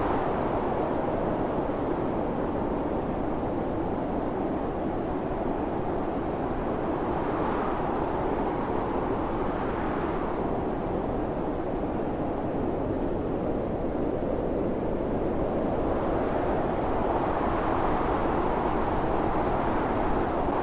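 Blizzard wind blowing in a steady rush with a low rumble beneath, swelling and easing in slow gusts: one gust builds from about seven seconds in and falls away sharply near ten seconds, and another builds over the last few seconds.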